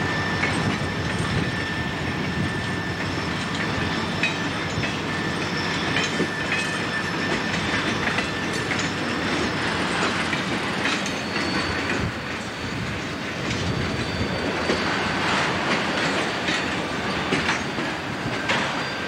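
Freight train cars rolling steadily past at close range, their wheels clicking over the rail joints. Now and then the wheels give a thin, high squeal.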